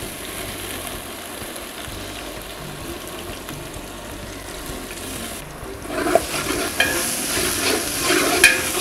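Soaked moong dal frying with onions and green chillies in hot oil in a large aluminium pot, a steady sizzle as the dal roasts in the oil for flavour. About six seconds in, a ladle starts stirring and scraping in the pot, with quick clicks over a louder sizzle.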